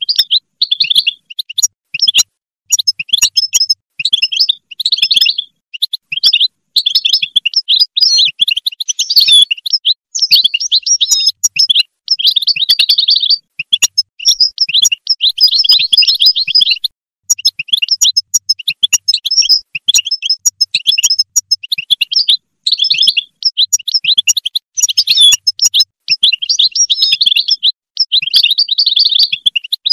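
European goldfinch singing: fast, tinkling twittering phrases of one to three seconds each, broken by short pauses.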